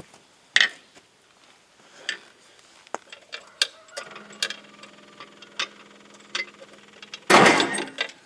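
Metallic clinks and taps of work on the drive chain, then the Bobcat 610 loader's starter motor bumped: a steady whirring hum for about three seconds, cut off near the end by a loud rushing burst.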